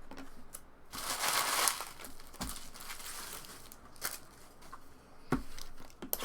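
Trading card pack wrapper being torn open and crinkled, loudest about a second in, with two soft thumps as the pack and cards are handled.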